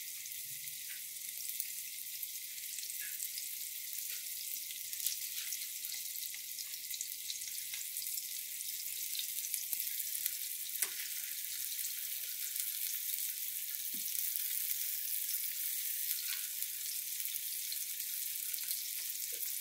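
Flour-dredged chicken thighs sizzling in hot olive oil in a nonstick frying pan: a steady hiss with scattered small crackles.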